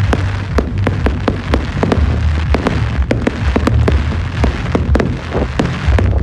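Fireworks going off in rapid succession: many sharp cracks and bangs, several a second, over a constant low rumble.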